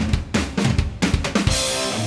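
Background music: a quick drum-kit fill of bass drum and snare hits, ending in a sustained high wash about one and a half seconds in.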